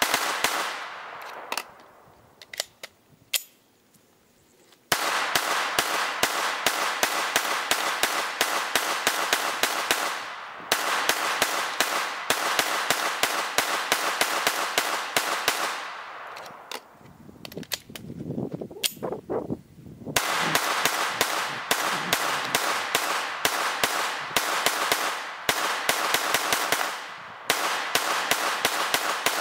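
AR-15 semi-automatic rifle with a lightweight bolt carrier group fired in rapid strings of several shots a second. Firing stops twice for a few seconds, with a few clicks and handling noise as the magazine is swapped, and briefly twice more.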